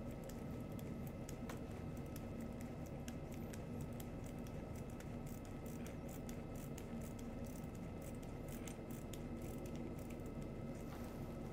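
Faint, irregular clicking and scraping of a screwdriver turning a 5 mm screw into the base of the fifth metatarsal, over a steady low hum.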